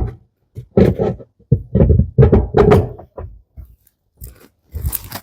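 Irregular knocks and clatter of washing machine parts being handled, as the pulsator is fitted back onto its shaft: a sharp knock at the start, then a run of short clunks and rattles with a quiet gap about four seconds in.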